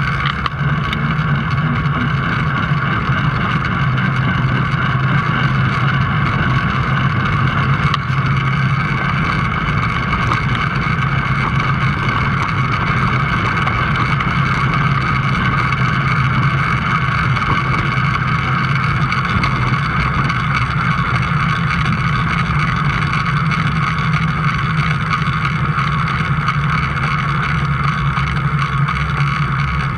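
A motor vehicle's engine running at a steady speed, holding one even hum throughout, with wind rush across the microphone.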